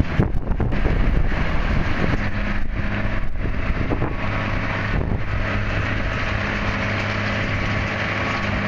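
An engine running steadily with a low hum that settles in about two seconds in, with wind buffeting the microphone.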